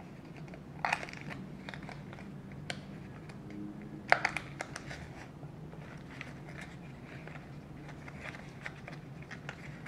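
Paper building pieces being handled and hooked together: light crinkling and small clicks, with two louder crisp snaps about one second and four seconds in.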